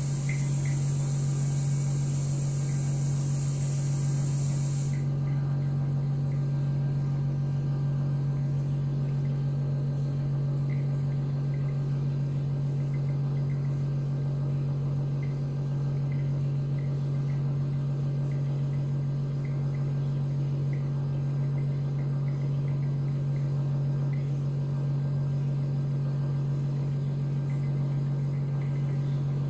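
Steady low machine hum, with a high hiss on top that cuts off suddenly about five seconds in, and faint scattered ticks.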